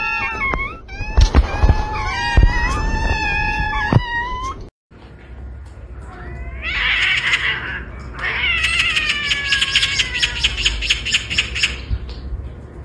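Several kittens meowing in short, overlapping calls. After a short break, higher, drawn-out cat cries follow that fall in pitch, with a fast, rattling chatter over the later ones.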